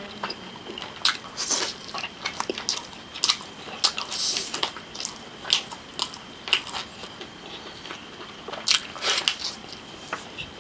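Close-miked eating of a saucy chicken leg: wet biting, chewing and lip-smacking, with the meat being torn apart by hand, as a run of irregular sharp smacks and clicks.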